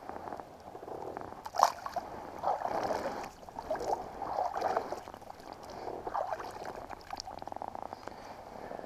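Water splashing and gurgling against a kayak in irregular bursts, with a sharp knock about one and a half seconds in.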